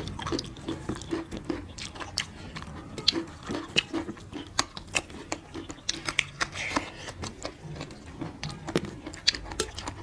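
Close-up mouth sounds of two people eating rice and curry by hand: irregular wet chewing and lip-smacking clicks, with an occasional crunch of raw carrot.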